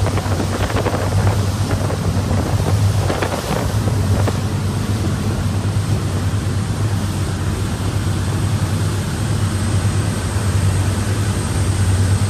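Boat engine running steadily, a deep hum under wind noise on the microphone.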